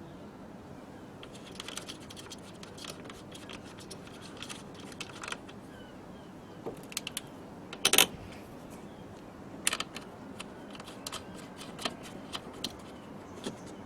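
Scattered light clicks and metallic clinks of hand tools and fittings being handled while working on a car battery, with one louder knock about eight seconds in.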